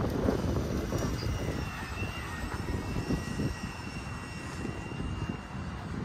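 An aircraft engine passing over with a steady high whine, while wind gusts rumble on the microphone, strongest at the start.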